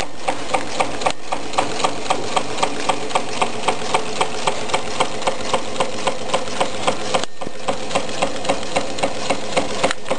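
Tea-light-powered Meccano Stirling engine running, its metal crank, linkages and gears clicking in a steady rhythm of about three ticks a second over a light mechanical whirr.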